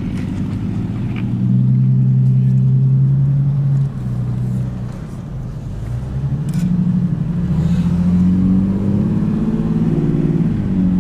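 Car engine heard from inside the cabin, pulling steadily, easing off about four seconds in, then picking up again with its pitch rising as the car climbs the driveway.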